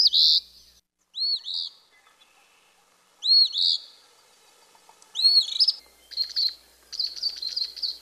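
Eastern phoebe singing its two-part "fee-bee" song, a high arched note followed by a rougher, buzzier one, four times a second or two apart, then a fast run of short, sharp notes near the end.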